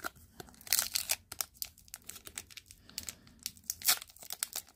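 Plastic wrapper of a hockey card pack crinkling and tearing as it is opened by hand, in irregular sharp crackles.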